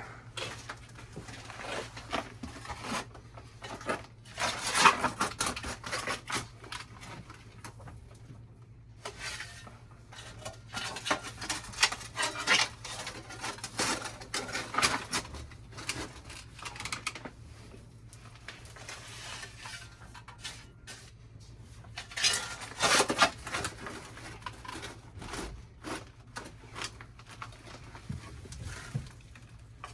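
A metal shovel digging in loose soil: irregular scrapes, scoops and clinks of the blade against dirt and rubble, coming in clusters with short pauses between, over a steady low hum.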